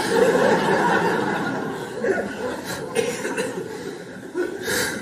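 Theatre audience laughing, loudest at first and dying away over a few seconds, with a few smaller swells of laughter later on.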